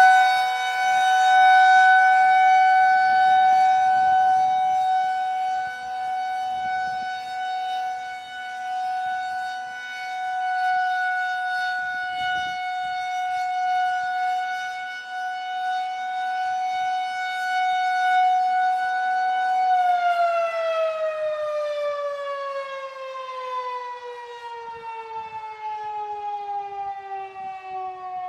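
Federal Signal 2001-130 rotating electromechanical warning siren sounding its steady alert tone, swelling and fading in loudness as it turns. About two thirds of the way through it shuts off and winds down, its pitch sliding steadily lower.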